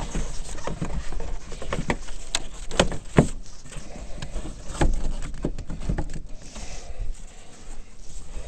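Irregular clicks and knocks of hard plastic parts being handled: a PVC pipe elbow and the ATV's intake plastics being fitted together by hand.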